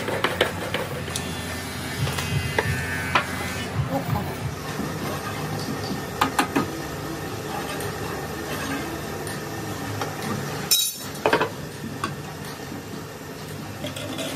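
Scattered knocks and clinks of wood and metal being handled at a small workbench lathe, over a steady low machine hum, with one sharper knock about three-quarters of the way through.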